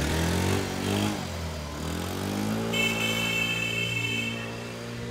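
Motor scooter's small engine revving as it pulls away and rides off, its pitch rising, dipping and rising again. About halfway in, steady background music comes in.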